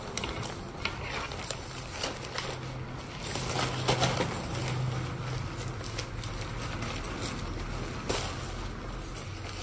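Thin waterproof nylon of a Matador FreeRain32 packable backpack rustling and crackling as it is handled and lifted, with a few sharper clicks. A low steady hum runs underneath.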